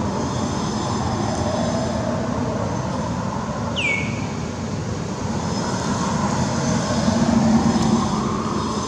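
Steady rumbling outdoor background noise, with a single short high squeak that falls in pitch about four seconds in.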